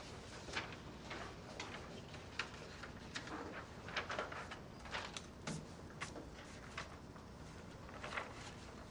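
Dry-erase marker squeaking and tapping on a whiteboard as a sentence is written out, in many short, irregular strokes.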